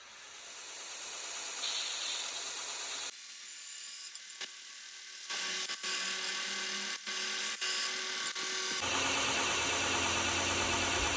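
Workshop power tools machining metal, heard as several short sections that change abruptly. A steadier humming stretch with a few sharp clicks comes midway, and a louder, denser grinding noise follows near the end.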